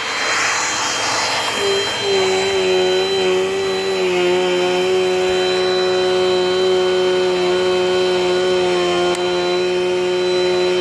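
Dirt Devil Dynamite Plus vacuum cleaner running. It grows louder over the first couple of seconds, then settles into a steady motor whine.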